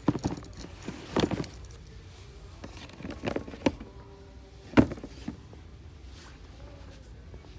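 Sneakers and cardboard shoe boxes being handled: scattered rustles and light knocks, with the sharpest knock about five seconds in.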